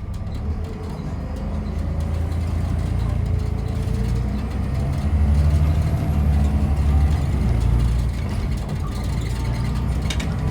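Volvo B7TL double-decker bus's seven-litre six-cylinder diesel engine running, getting louder from about four seconds in, with a faint rising whine above the rumble as the bus pulls along.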